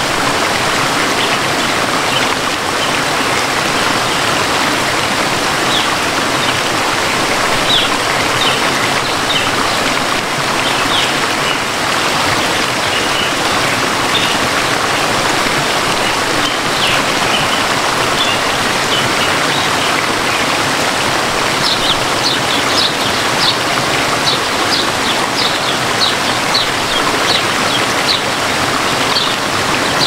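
Babbling stream running steadily, with birds chirping over it in short high notes that come thicker near the end.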